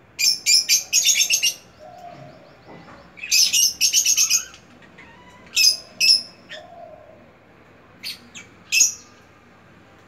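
Caged lovebirds chirping shrilly: two rapid runs of chirps in the first half, then a few single chirps spaced out toward the end.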